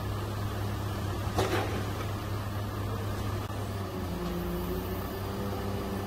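Truck-mounted crane working, its truck engine driving the hydraulics with a steady low hum while the boom and tilting auxiliary jib are lowered. There is a single knock about a second and a half in, and a faint steady whine joins from about four seconds in.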